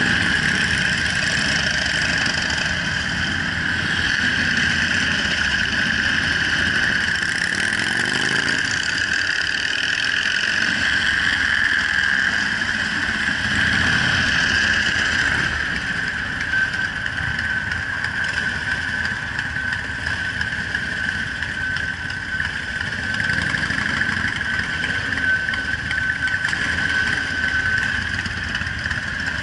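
Cruiser motorcycle engines running in slow city traffic, with an engine note rising as it accelerates about eight seconds in and again around fourteen seconds in. A steady high-pitched whine runs under the engine noise.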